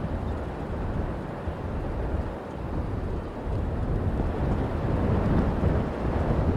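Strong gusting wind buffeting the microphone in a heavy rumble that swells toward the end, with the distant running of a jet airliner's engines underneath.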